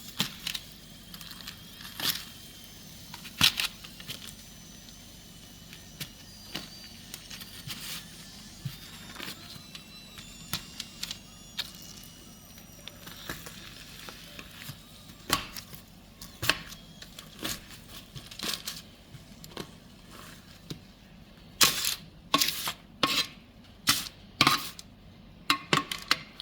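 Roasted potatoes being smashed in a pan: a series of sharp knocks and clicks of a utensil against the pan, coming faster in the last few seconds, with some crinkling.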